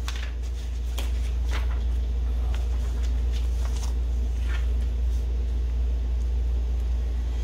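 Steady low hum, with soft, brief rustles and taps as a paper worksheet and test-lead wires are handled on a desk.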